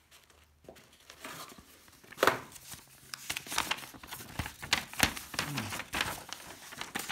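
Bubble wrap and paper crinkling and rustling in irregular bursts as hands rummage in a cardboard parcel box, then pull out and unfold a printed sheet of paper.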